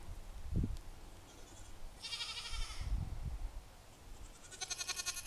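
Goats bleating: two high, wavering bleats, the second near the end, with low rumbling thumps in between.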